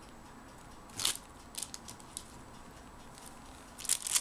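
Handling noise as bars of cold process soap are moved about on a table: a few short scrapes and rustles, one about a second in and a cluster near the end.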